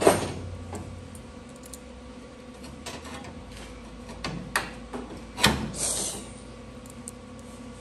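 Metal clicks and clanks of a locking C-clamp being handled against a car's sheet-metal roof structure. The loudest is one sharp knock right at the start, with a few more sharp clicks about four and a half and five and a half seconds in, the second followed by a short scrape.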